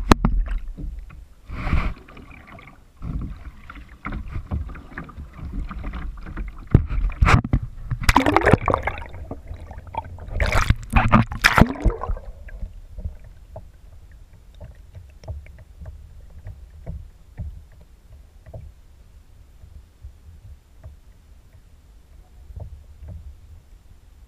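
Water splashing and sloshing over an action camera's waterproof housing as it dips in and out of the surface, in loud irregular bursts with a few rising gurgles. About twelve seconds in it goes under and stays submerged: the sound turns to a muffled low rumble with faint scattered clicks.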